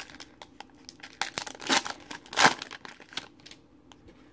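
Plastic wrapper of a trading card pack crinkling and tearing as it is ripped open, in several quick rustling bursts, the loudest about two and a half seconds in.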